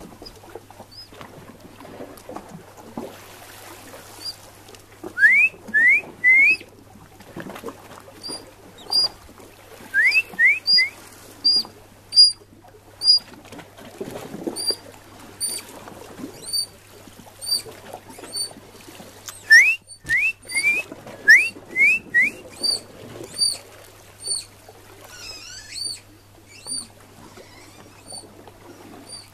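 Eurasian otters calling with high-pitched whistles: quick rising whistles in groups of three, among a steady run of thin, very high peeps.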